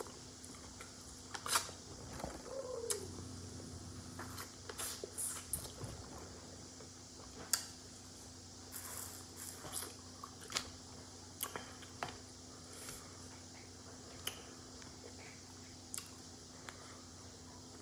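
Close-up eating sounds of seafood boil eaten by hand: scattered wet smacks, chewing and small clicks from picking through saucy crab, crawfish and shells.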